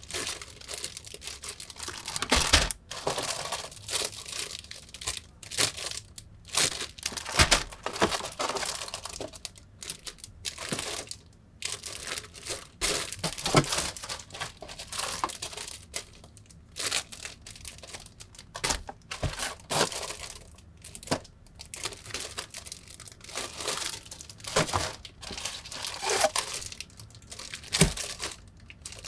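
Clear plastic bags crinkling as bagged plastic model-kit sprues are lifted out of the cardboard box and handled, with occasional light knocks of the sprues against the box and each other.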